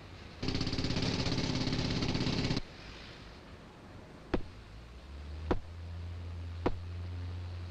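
A pneumatic tool rattles loudly for about two seconds, then stops. Sharp single knocks follow about once a second over a low steady hum, like hammer blows on the timber supports.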